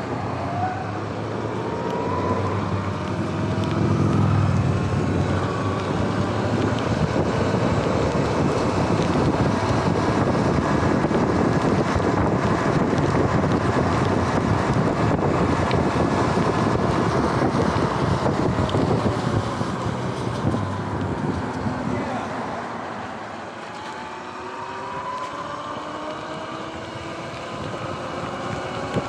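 Sur-Ron X electric dirt bike accelerating, its motor whine rising in pitch as it picks up speed. The whine is then buried under loud wind rush on the microphone and tyre hiss on the wet road. Near the end the whine rises again as the bike speeds up once more.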